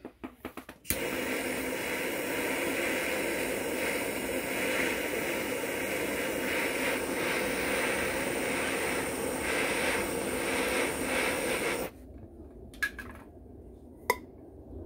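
Handheld butane torch started with a quick run of clicks, then hissing steadily for about eleven seconds as it heats a brass tube to melt solder, and cut off abruptly. Two light metallic clicks follow near the end.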